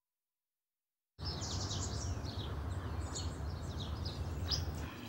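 Complete silence for about a second, then outdoor ambience: birds chirping repeatedly over a steady low rumble.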